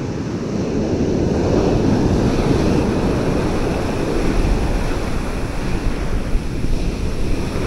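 Ocean surf washing onto a beach, with strong wind buffeting the microphone: a steady low rush with no distinct events.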